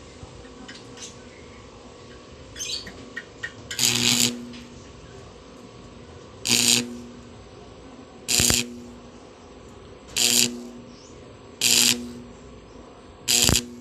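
Welding arc on stainless steel struck in short stitches: six hissing, crackling bursts of about half a second each, a second and a half to two and a half seconds apart, laying the overlapping 'lizard-scale' bead pattern. A few small clicks come before the first burst.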